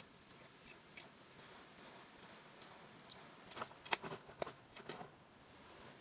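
Dry debris on the forest floor being handled and cleared by hand: a short cluster of sharp snaps and clicks from about three and a half seconds in, the loudest near four seconds, over a faint steady background.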